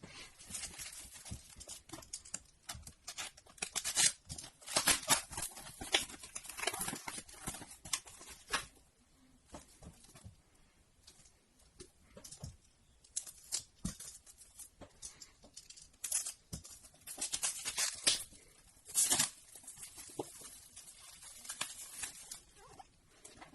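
Shipping packaging being handled and opened by hand: irregular rustling, crinkling and tearing, busiest in two stretches with a sparser lull between them.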